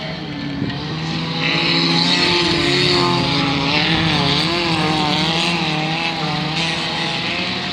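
Several autocross cars' engines racing on a dirt track, their pitches repeatedly rising and falling as the drivers work the throttle and change gear.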